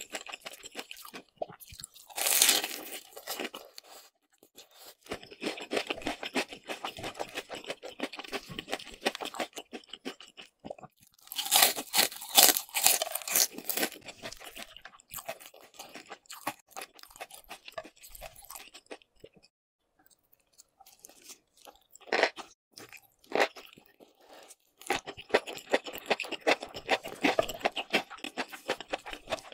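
Close-miked crunching and chewing of crispy breaded fried shrimp, with loud crunchy bites about two seconds in and again around twelve seconds in, and a short quiet spell past the middle.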